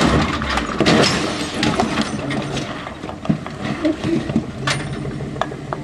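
Rock buggy rolling over on slickrock: rapid clattering knocks and bangs of the cage and body against the rock, heaviest in the first two seconds and thinning out after. Excited voices call out over it, and an engine runs low near the end.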